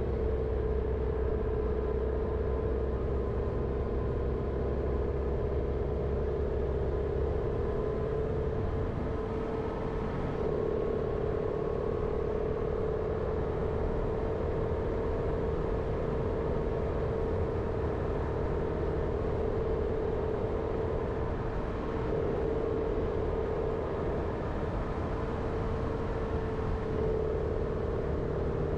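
Jeep Renegade driving: steady engine and road noise with a continuous mid-pitched hum that shifts slightly in pitch now and then, and a deeper rumble that eases off about a quarter of the way in.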